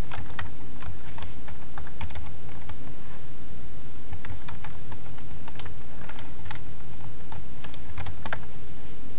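Computer keyboard typing: irregular keystrokes tapping out a short part name, over a steady low hum.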